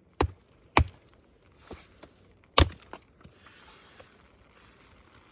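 An axe chopping firewood: three sharp blows, the loudest about two and a half seconds in, with a couple of lighter knocks between them.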